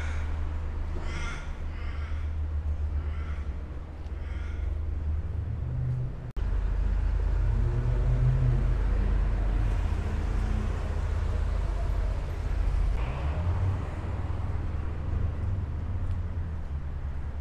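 A crow cawing in a run of about six harsh calls over the first four seconds or so, over a steady low street-traffic rumble; from about six seconds in, a car drives past.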